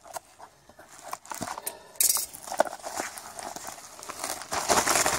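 A few small snips of scissors cutting a padded plastic mailer, then from about two seconds in a sudden ripping and crinkling of the mailer as it is pulled open, louder near the end.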